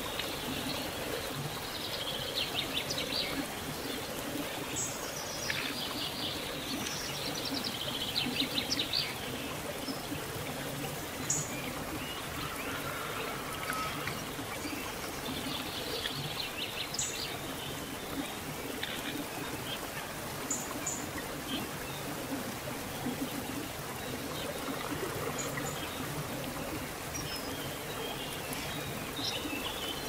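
A rocky stream burbling steadily over and between boulders. Small birds call over it with short high chirps and quick trills, several in the first ten seconds and again around the middle.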